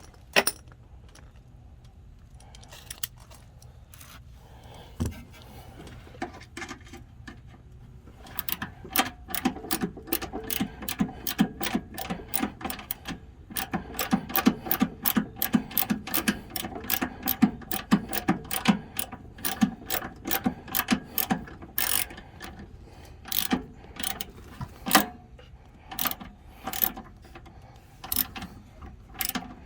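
Socket ratchet wrench clicking as a bolt is worked loose. A few separate clicks come first, then quick runs of several clicks a second from about a third of the way in, growing sparser near the end.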